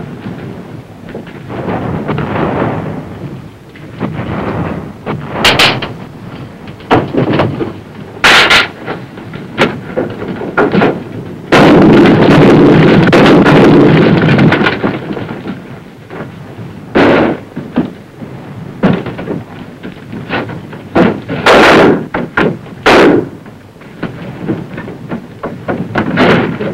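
Combat sounds: scattered sharp gunshots and bangs, with one long, loud blast lasting about three seconds near the middle.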